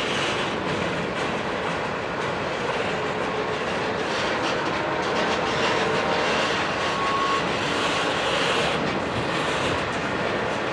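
BNSF double-stack intermodal train passing close by, its loaded container well cars rolling steadily on the rails with the continuous noise of steel wheels on track.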